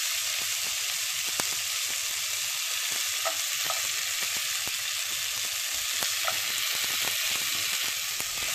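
Chopped onion, garlic and ginger sizzling as they sauté in melted butter in a hot pan: a steady frying hiss with many scattered crackles.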